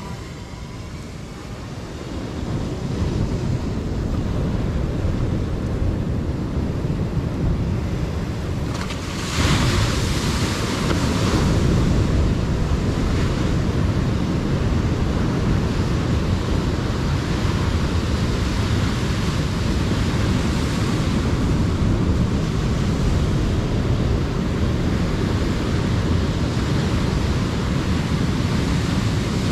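Ocean surf washing and breaking against a rocky shoreline, with wind buffeting the microphone. The sound fades in over the first few seconds and jumps suddenly louder about nine seconds in, then holds steady.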